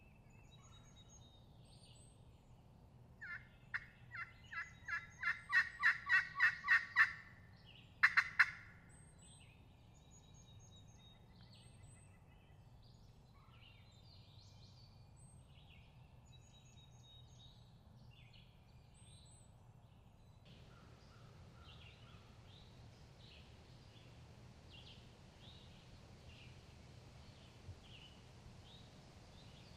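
Turkey calling: a run of about a dozen notes growing steadily louder, followed just after eight seconds in by a short, loud burst of three quick notes. Small songbird chirps continue throughout.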